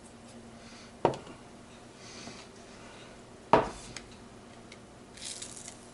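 Metal gearbox parts being handled: two sharp clanks, about a second in and again about three and a half seconds in, with light scraping and rubbing of metal between them.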